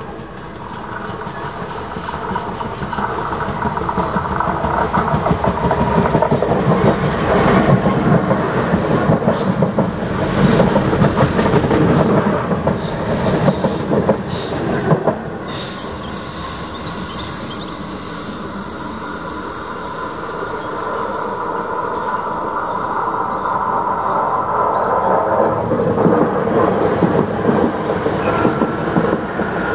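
Irish Rail 8100 class DART electric multiple unit, two units coupled, approaching and running past close by: the running noise grows louder as it nears, with many sharp wheel clicks over the rail joints loudest around the middle, then a steadier run with a drawn-out whine through the second half.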